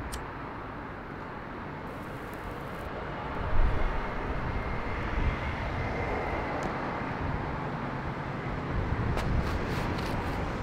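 City street traffic ambience: a steady wash of traffic noise, with a vehicle's low rumble swelling about three and a half seconds in. There are a few light clicks.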